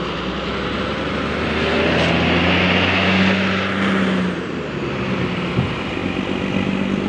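An NPM intercity bus driving past: its engine hum and road noise swell to their loudest about three seconds in, then ease off as it goes by.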